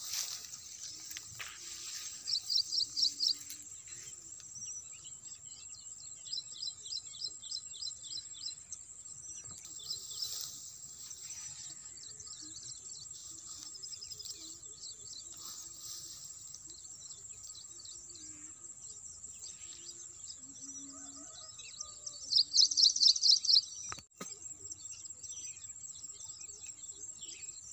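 Birds and insects: runs of rapid chirping trills over a steady high-pitched insect drone. The trills are loudest about two seconds in and again briefly about twenty-two seconds in.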